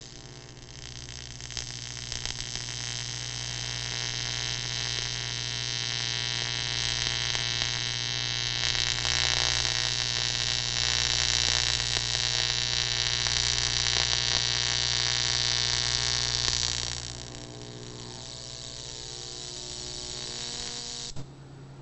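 AC TIG welding arc on 6061 aluminum tubing: a steady buzzing hiss with an electrical hum under it. It grows louder through the middle, drops back to a quieter buzz, and cuts off suddenly shortly before the end.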